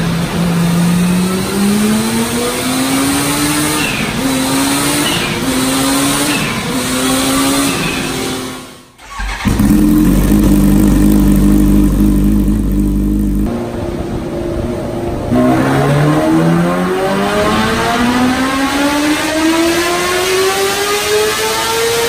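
Kawasaki Ninja H2 Carbon's supercharged inline-four revving hard on a dyno run, its pitch climbing through the gears with a drop at each shift. About nine seconds in the sound cuts out briefly, then the engine holds a steady high pitch for a few seconds before another long rising pull.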